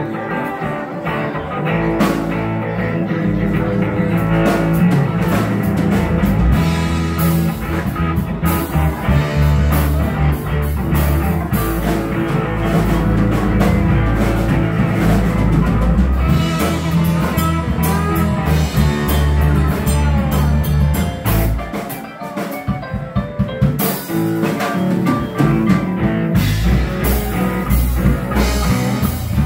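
Live rock band playing with electric and acoustic guitars, keyboard and drum kit. The band drops back briefly about 22 seconds in, then comes back in full.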